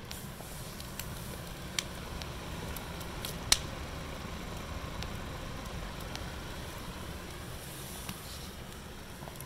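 Wood fire burning in a mesh-fronted chimenea, crackling with scattered small pops and two sharper cracks, the loudest about three and a half seconds in, over a steady low rush.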